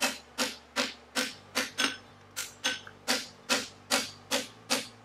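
Steady hammer blows on an aluminum horseshoe bar held over the anvil horn, about two and a half strikes a second, each a sharp knock with a short ring, as the toe bend of the shoe is hammered in.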